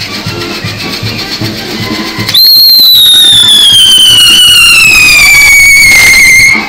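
Festive music and crowd, then about two seconds in a whistling firework goes off. Its piercing whistle falls slowly in pitch for about four seconds, loud enough to max out the recording, and cuts off suddenly.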